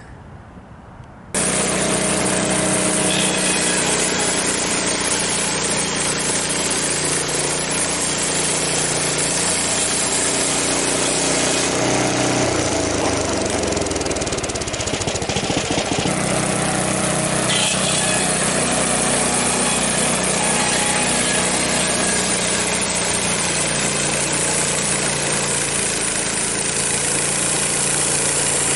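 Portable bandsaw sawmill's gasoline engine comes on abruptly about a second in and then runs loud and steady, with a shift in its sound partway through.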